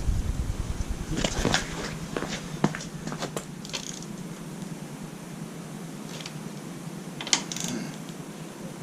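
Hand tools on a motorcycle's front brake caliper bolts: a ratchet with a deep socket, giving scattered clicks and metal clinks, a few close together about a second in and again near the end.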